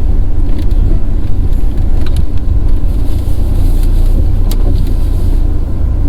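BMW 428i moving slowly with the steering turned hard, a steady low rumble of the car running and rolling. No loud clunk stands out from the underbody, the sign that the knocking on turning and reversing has been cured.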